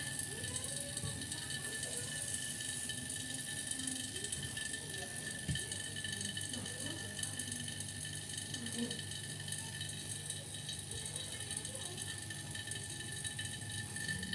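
Vacuum pump running steadily, evacuating a refrigerator's refrigerant lines after they have been flushed clear of a blockage. It makes an even drone with a faint hiss.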